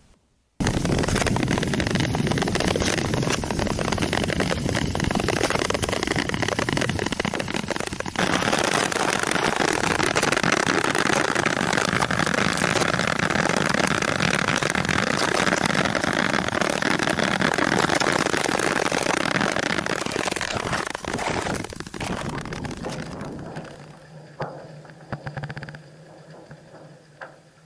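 Loud, continuous rushing noise of travel across bare, clear lake ice, changing abruptly at about eight seconds. After about twenty seconds it fades to a quieter, uneven sound with a faint low hum.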